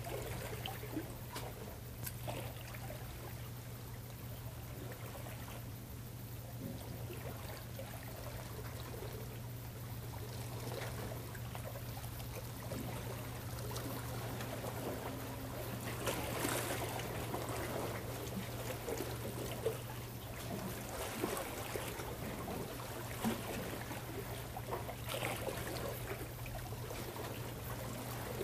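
Seawater trickling and lapping among shore rocks, with scattered small ticks, over a steady low hum.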